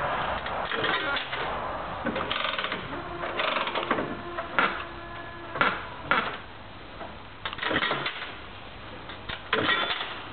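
Bally Reel Gems reel slot machine spinning its reels with a dense mechanical clatter, then the three reels stopping one after another with sharp clunks about half a second to a second apart, followed by a few more mechanical clicks near the end.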